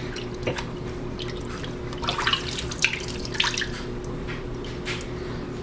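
Gas mask exhale valve cover being washed by hand in a sink of soapy water: scattered splashes and drips, busiest from about two seconds in, over a steady low hum.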